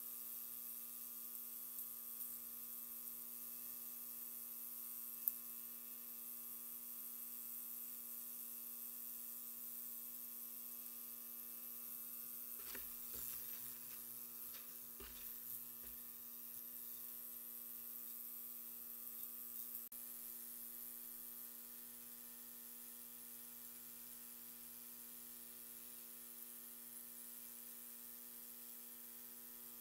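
DADI DA-968 ultrasonic cleaner running, a steady electric hum with a buzzing edge, holding switch parts in cleaning solution. Around halfway there are a few light clicks as metal tweezers stir the parts in the bath.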